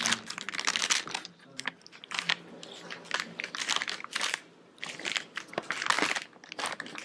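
Pizza being bitten and chewed close to the microphone: a run of irregular, noisy bites and chews.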